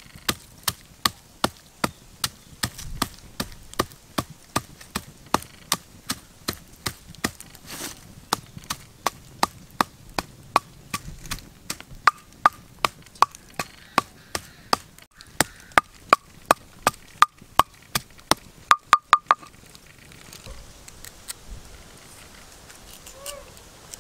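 Wooden pestle pounding in a clay mortar: a steady series of sharp knocks at about two strokes a second, a little quicker and with a short ringing note near the end, stopping about twenty seconds in.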